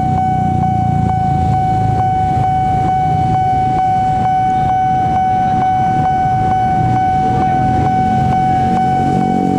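Level-crossing warning alarm ringing continuously: one steady electronic tone with a regular click about three times a second, over a low rumble of waiting vehicles' engines.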